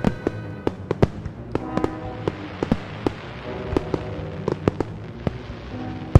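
Fireworks going off in a rapid string of sharp bangs and pops, several a second, over music with held notes.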